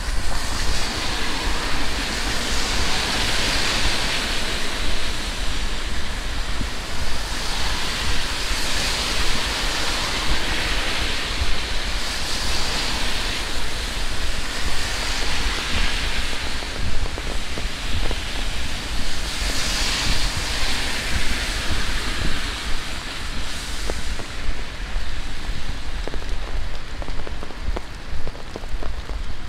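Heavy tropical rain falling steadily: a dense hiss over a low rumble that swells and eases every few seconds. Near the end, individual drops patter more distinctly.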